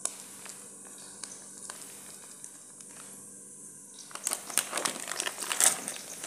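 Plastic spice packet crinkling as it is handled and tipped to pour ground turmeric. The crinkling starts about four seconds in and runs on as a dense, crackly rustle; before that there are only a few light clicks.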